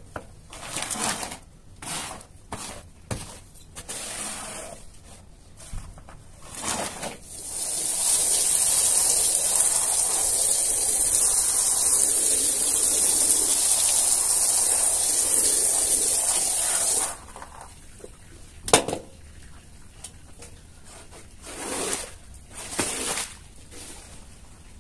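A squeegee dragged in short strokes across a wet carpet, then a hose spraying water onto the pile in a steady hiss for about nine seconds that cuts off suddenly. A single sharp knock follows, then a few more squeegee strokes.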